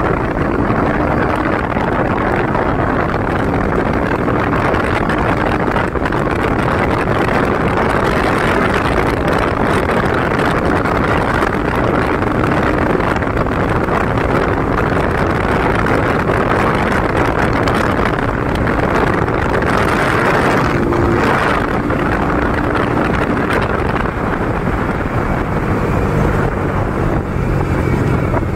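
Bajaj Pulsar NS200 with a custom exhaust being ridden: its single-cylinder engine runs under way, steady and loud, largely buried under wind rush on the microphone, with the engine note faintly shifting in pitch.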